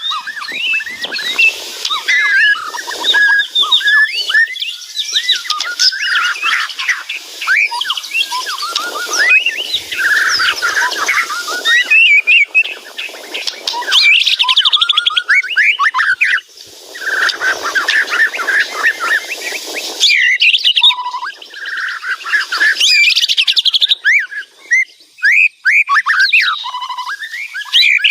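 White-rumped shama singing loudly and almost without pause: a fast, varied stream of gliding whistles and rapid trills, with brief breaks about two-thirds of the way in and again near the end.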